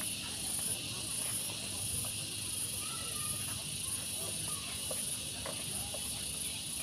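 Quiet background of a waiting gathering: faint low murmur and a few small clicks, under a steady high-pitched hiss that pulses on and off at an even pace.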